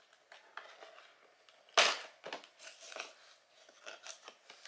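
A cardboard advent calendar door being pried open, with small crackles and tearing and one sharp snap of the cardboard giving way about two seconds in.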